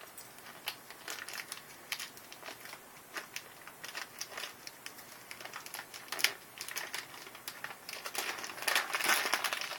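Light crinkling rustles with scattered small clicks, growing denser near the end.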